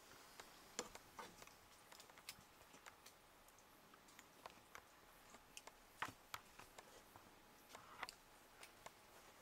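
Near silence broken by faint, irregular clicks and ticks, a slightly louder one about a second in, another about six seconds in and one about eight seconds in.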